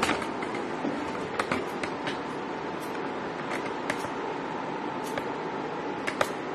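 Electric hair clippers running steadily, with a scattering of short sharp clicks.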